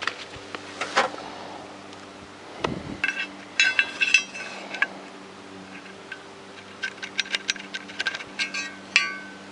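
Screwdriver clinking and scraping against metal parts of a walk-behind tractor's fan bearing housing, scraping debris out of the bearing seat. A cluster of ringing metallic clinks comes a few seconds in, then a run of quick clicks and taps near the end.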